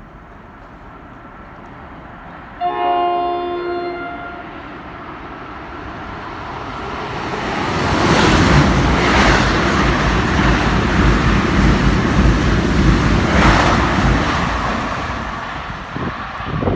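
NJ Transit electric train sounding one chord horn blast of about a second and a half, then passing at high speed: a loud rush and rumble of wheels on the rails that builds, holds for several seconds and fades.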